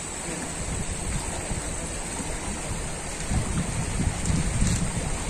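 Steady rush of a fast-flowing river with wind buffeting the microphone, the gusts growing stronger a little past halfway.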